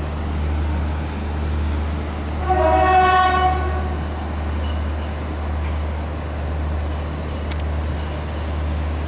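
Horn of a departing NIR Class 3000 diesel multiple unit, sounding once for about a second a couple of seconds in, over a steady low rumble.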